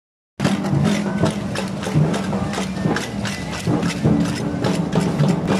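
Indigenous-style dance troupe's music: a bass drum beating under the rapid, steady clacking of many wooden bows or sticks struck together, about three to four clacks a second.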